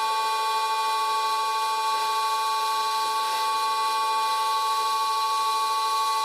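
Old Karger metal lathe running at 400 RPM while turning aluminium on its first cut: a steady whine of several high tones over a hiss, unchanging throughout.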